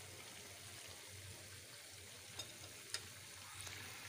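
Chicken pieces deep-frying in hot oil in a pan: steady sizzling, with two sharp ticks about two and a half and three seconds in.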